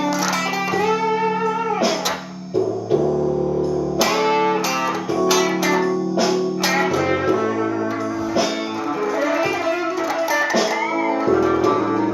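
Blues guitar instrumental: single-note lead lines with bent notes over sustained low bass notes.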